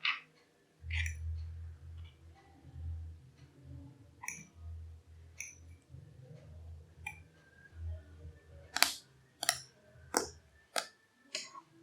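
Shampoo slime being handled, giving a series of sharp sticky clicks and pops over a low handling rumble. The pops come faster and louder in the last three seconds, about one every half second or so.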